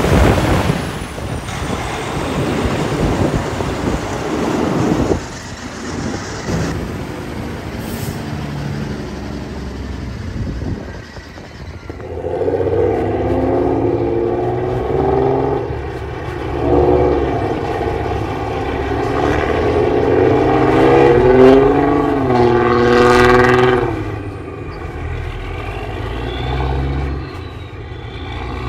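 Semi trucks pulling out with their diesel engines running, loud in the first few seconds. About twelve seconds in, a multi-note air horn of the train-horn kind blows for about twelve seconds in long blasts, its notes sliding together.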